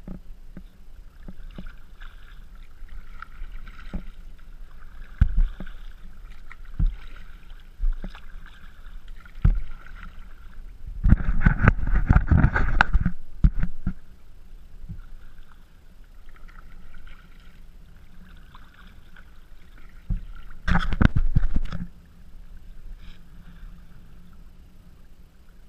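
Kayak paddling on choppy water: water lapping and splashing against the hull with paddle strokes and scattered thumps, heard through the GoPro's housing. Two louder stretches of splashing come about halfway through and again near the end.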